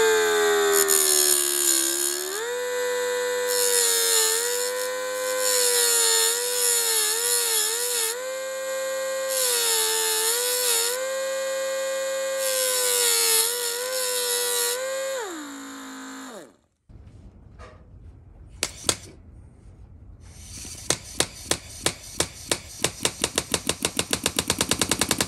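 Small electric grinder whining as it grinds down the mushroomed head of a pin in a motorcycle timing chain, so the pin can be punched out. Its pitch dips and wavers as it bites, and it winds down after about sixteen seconds. After a short pause comes a run of sharp clicks that come faster toward the end.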